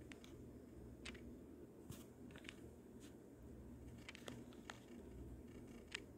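Faint, scattered clicks and crackles of a plastic fruit cup being handled, a finger tapping and pressing on its clear plastic lid, over a low steady room hum.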